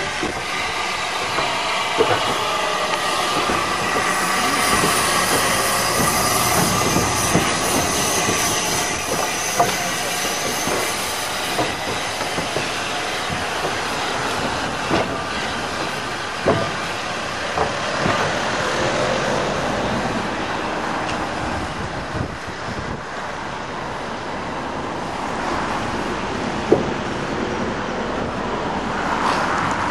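Steam locomotive No. 1638 moving slowly on its own, a steady hiss with a squeal from the wheels and occasional sharp clanks and clicks from the running gear and track.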